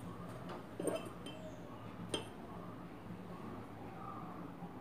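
A glass mixing bowl holding dough clinking lightly a few times, about one and two seconds in, as the dough is handled in it.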